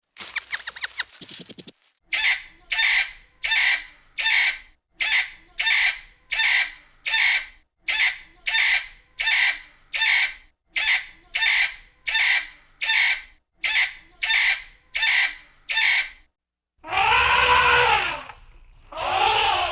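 Domestic fowl calling: after a brief rapid rattle, a long run of about twenty short calls comes evenly, roughly three every two seconds. Near the end there are two longer calls that rise and fall in pitch.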